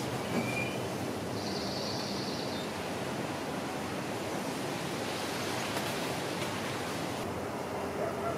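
Steady, even outdoor background hiss, with a short high chirp about half a second in and a brief high trill around two seconds in.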